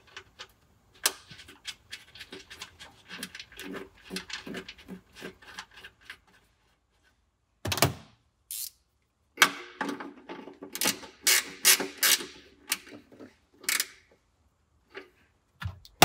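Small hand-work sounds of fitting a car's wiring harness: a run of light clicks and rubbing as a nut goes onto a ground stud, then, after a short pause, a series of sharper plastic clicks and clacks.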